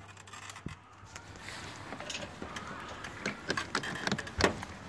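Spring-loaded jumper cable clamp being worked onto a car battery's positive terminal: scattered small clicks and knocks of metal and plastic, with one sharper click about four and a half seconds in.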